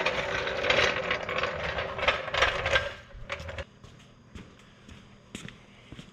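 Steel floor jack rolled across a concrete floor, its wheels and handle rattling, for about three and a half seconds. A few light knocks follow.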